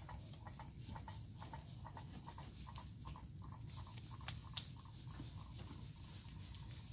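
Faint crackling of an open wood fire burning under a large pot of simmering soup: scattered soft pops and light clicks, one sharper crack about four and a half seconds in, over a low steady rumble.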